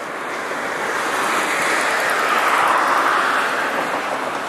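Kanto Railway KiHa 2400-series diesel railcar running in the distance along the line. Its running noise is a hiss that swells and then fades, loudest a little past halfway.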